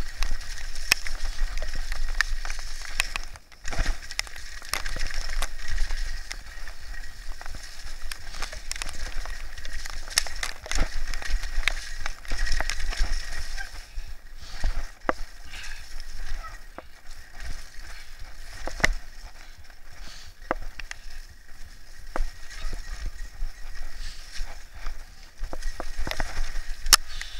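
Mountain bike descending a wet dirt trail: tyres running over the ground with the chain and frame rattling and knocking over bumps, and a low wind rumble on the microphone.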